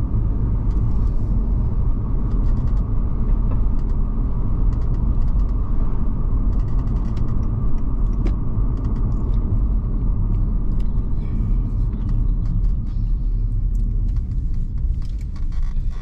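Steady low rumble of a car heard from inside the cabin, with a few faint clicks and rustles.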